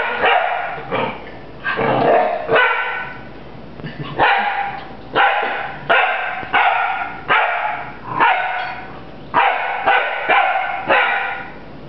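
Bouvier des Flandres puppy barking repeatedly, about a dozen short, sharp barks, with a brief pause about three seconds in.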